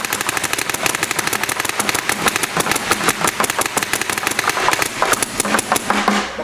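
Two electronic paintball markers firing rapid strings of shots together, a fast even rattle of many shots a second that stops just before the end.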